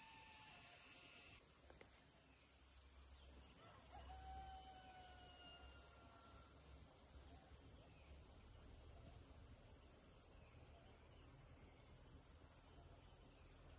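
A faint rooster crows once, about four seconds in, for roughly two seconds. Under it runs the steady high hiss of insects.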